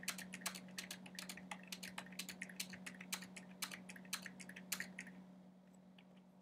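Computer keyboard typing in quick, irregular keystrokes that stop about five seconds in, over a steady low hum.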